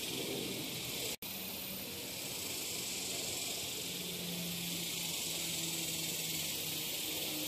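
Steady high hiss of outdoor background noise, broken by a brief dropout of all sound about a second in.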